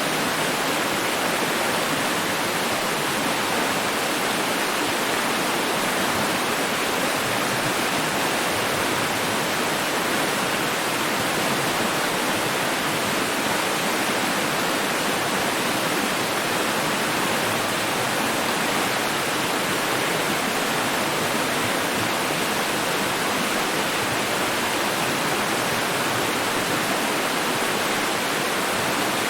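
Running water rushing with a steady, even hiss that does not change.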